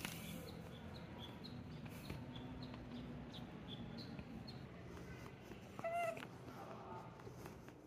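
A tabby cat gives one short meow about six seconds in, followed by a softer call just after it.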